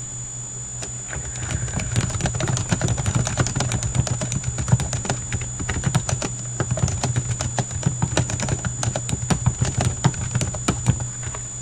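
Typing on a computer keyboard: a quick, uneven run of key clicks that starts about a second in and stops near the end, over a steady hum.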